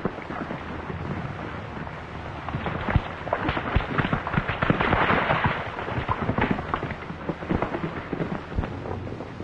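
Horses galloping, hooves making a rapid, irregular clatter of knocks on dirt that swells around the middle.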